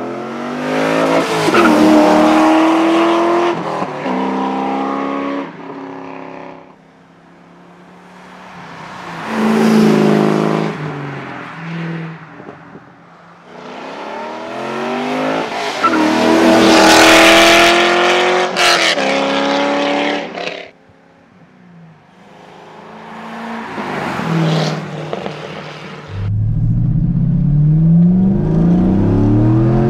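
C5 Corvette V8 with a valved exhaust accelerating hard in several loud runs, each note climbing and then falling away as the car passes. Near the end a deep, sustained pull starts with the pitch rising.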